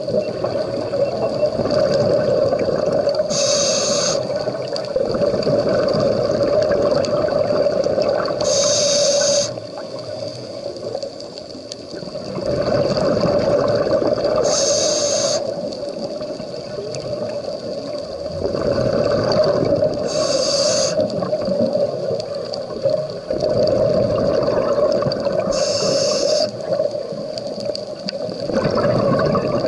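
Scuba diver breathing through a regulator underwater: about every five to six seconds a short hiss of inhalation, followed by a long rush of exhaled bubbles, six breaths in all.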